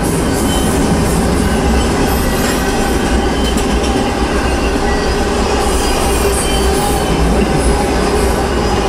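Norfolk Southern double-stack intermodal freight train rolling past at close range: a steady loud rumble of wheels on rail, with faint wheel squeal coming and going.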